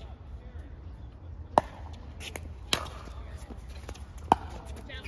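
Pickleball rally: paddles striking the plastic ball, three sharp pops spaced about a second or more apart.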